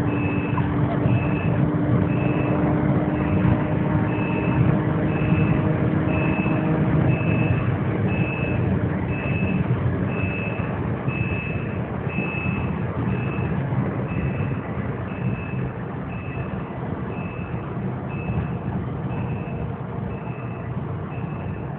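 Cabin noise inside a Porsche 997 GT3 at around 240–250 km/h: flat-six engine, wind and tyre noise. The sound eases off over the second half as the car slows to about 195 km/h. Through it runs a high electronic beep, repeating about once every three-quarters of a second.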